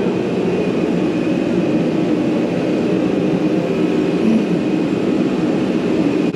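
Steady mechanical drone with a faint constant high tone above it.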